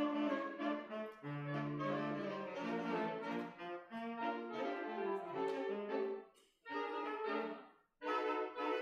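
Saxophone quartet playing a passage in several-part harmony, coming in suddenly, with two short breaks between phrases, one about two-thirds through and one near the end.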